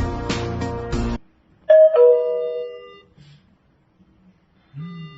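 Background music cuts off about a second in, then a wireless video doorbell chime plays one two-note ding-dong, high then lower, the notes ringing out for about a second.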